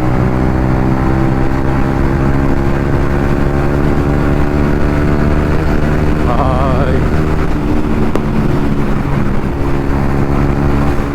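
Yamaha MT-15's 155 cc single-cylinder engine with an aftermarket Akrapovic exhaust, running steadily under way, its engine speed easing slightly over the first few seconds. Wind rumbles on the microphone, and a short wavering tone sounds about six seconds in.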